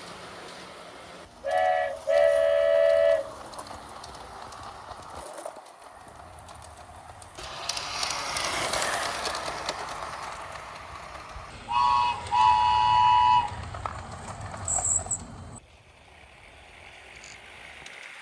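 Train horn sounding two double toots, the first a short then a long blast lower in pitch, the second pair higher about ten seconds later. Between them a steady rushing, rumbling noise swells and fades.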